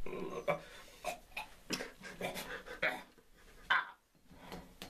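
A person's voice in short broken bursts, speaking or vocalising, with a brief pause a little after the middle.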